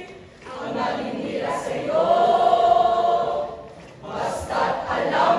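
Youth choir of boys and girls singing together, with a long held note in the middle of the phrase and a brief drop just before the singing picks up again.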